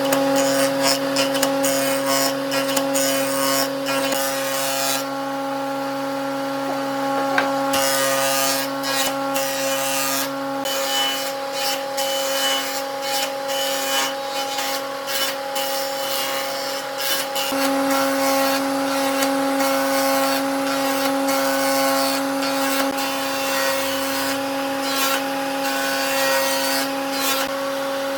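Electric power tool running steadily on wood: a constant motor hum under an irregular rasping, scraping noise of the tool working the surface. The scraping drops out for a couple of seconds about five seconds in.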